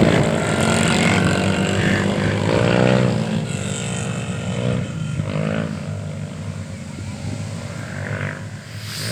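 Rally motorcycles passing and moving away, several engine notes overlapping as they rev up and down and gradually fade.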